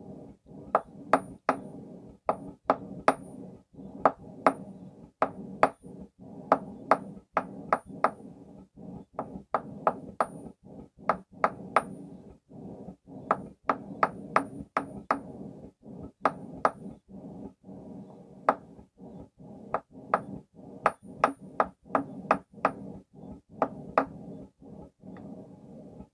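Hand hammer striking hot steel on a stake anvil with a carbon tool-steel face: sharp blows with a bright ringing ping, in runs of three to six with short pauses between. A steady low rumble runs under the blows.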